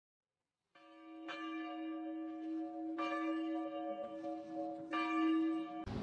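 A bell rings, struck about four times, each stroke ringing on into the next, and then cuts off suddenly near the end.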